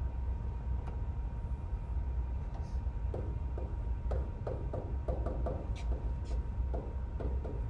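Stylus tapping and scratching on a tablet screen in short clicks as a line of math is handwritten, busiest in the second half, over a steady low electrical hum.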